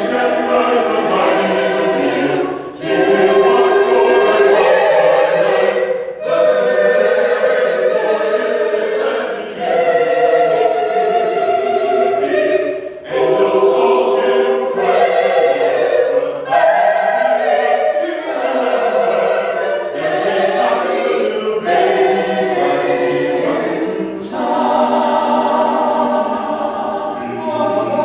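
Mixed church choir singing in phrases a few seconds long, with brief breaks for breath between them.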